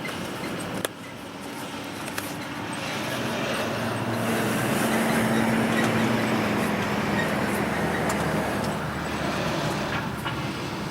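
A motor vehicle passing by, its noise growing louder to a peak about halfway through and then fading, with a steady engine hum at its loudest. A few light clicks come in the first couple of seconds.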